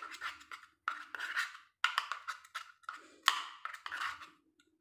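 Plastic spoon stirring and scraping a paste around a small plastic bowl, in runs of quick scrapes and clicks about a second apart.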